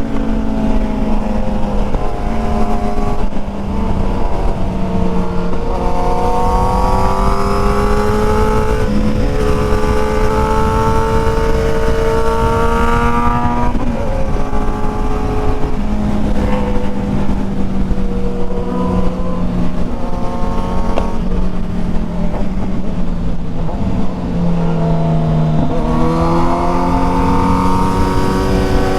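Sport motorcycle engine pulling hard on the road, its note climbing with the throttle and dropping at the gear changes. A long climb ends in a sudden drop, the note then eases down, and it climbs again near the end.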